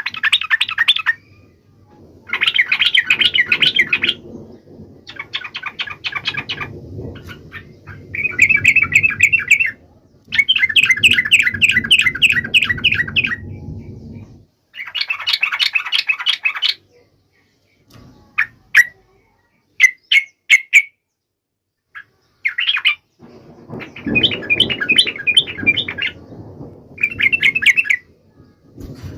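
Yellow-vented bulbul (trucuk) singing hard in repeated bursts of rapid, chattering notes, each burst a second or two long. There are a few short single calls in a sparser stretch a little past the middle.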